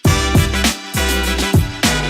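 Background music with a steady beat: punchy drum hits about twice a second over a bass line and sustained synth chords.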